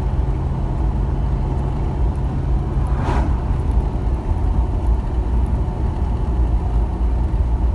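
Car driving along a paved road, heard from inside the cabin: a steady low rumble of engine and tyres, with a brief rush of noise about three seconds in.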